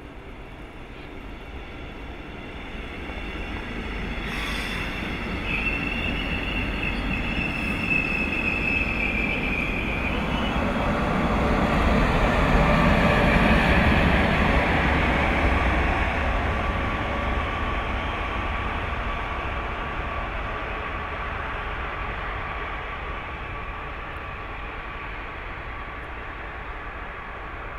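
Electric passenger train of double-deck coaches passing on station tracks: the rumble of wheels on rail builds to a peak about halfway through and then fades as the train pulls away. A high wheel squeal sounds from about five to ten seconds in, followed by a steady whine while it passes.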